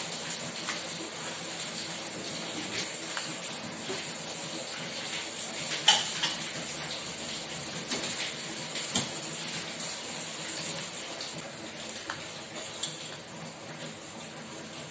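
Kitchenware being handled: a bowl and a metal pan clinking and knocking now and then, the loudest knock about six seconds in, over a steady hiss.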